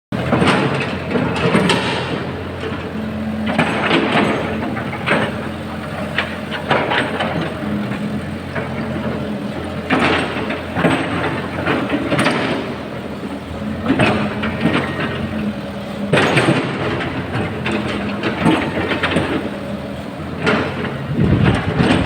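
Caterpillar 313 hydraulic excavator working: its diesel engine runs steadily while loud metallic clanks and scraping come every second or two.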